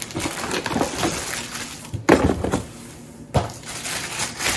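Rustling and clattering of packaging and plastic vacuum parts being handled and unpacked, with a sharp knock about two seconds in and another just after three seconds.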